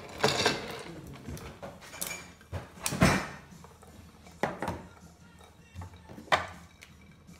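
A handful of sharp knocks and clunks, the loudest about three seconds in, from objects handled and set down on a wooden counter, including a plastic infrared thermometer. Faint background music runs underneath.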